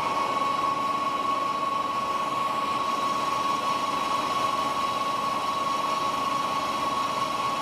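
WMW DLZ 630 centre lathe running, a steady mechanical noise with a constant high whine.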